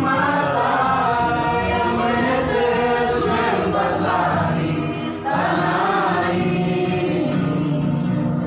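A group of voices singing a Christian praise song together, with a short break between lines about five seconds in.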